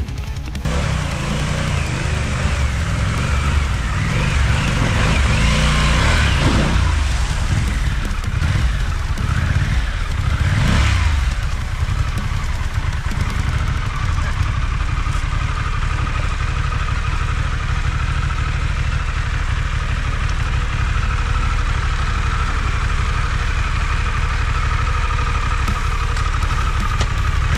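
Harley-Davidson Pan America's V-twin engine working through a rocky creek at low speed. It is revved up and back down twice, about six and ten seconds in, then held at a steady throttle, over the rush of the creek water.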